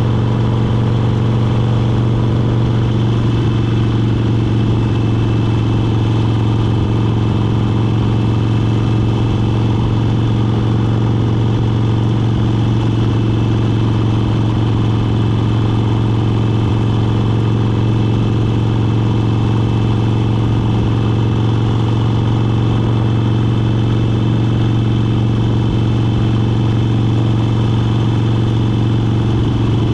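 Motorcycle engine running steadily at a constant cruising speed, a low, even drone with no gear changes or revving.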